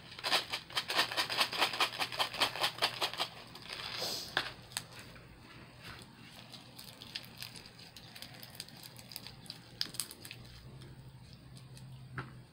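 Small plastic beads sprinkled by hand into a disposable plastic bowl of clear slime, a rapid run of clicks for about three seconds. Then the slime is kneaded by hand in the bowl: quieter, with scattered soft clicks.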